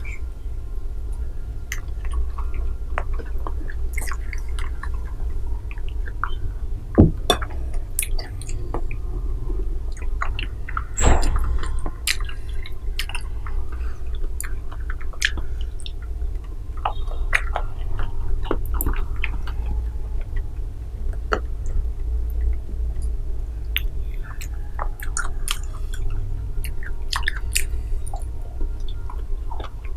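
Close-miked chewing of soft mango and dragon fruit jelly: many short wet mouth clicks, with two louder ones about 7 and 11 seconds in, over a steady low rumble.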